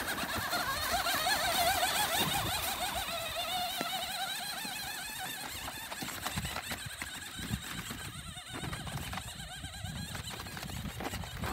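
Electric motor of a radio-controlled monster truck whining, its pitch wavering quickly up and down as the truck speeds up and slows; the whine grows fainter after about five seconds as the truck drives away.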